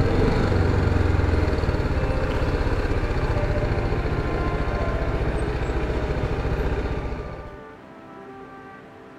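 Motorcycle riding: the BMW G310GS's single-cylinder engine running, with road and wind noise. It stops abruptly about seven and a half seconds in.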